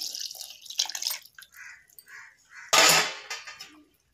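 Water poured from a vessel into a kadhai of thick kadhi, splashing at the very start, then a few soft splashes and one short loud noise about three seconds in.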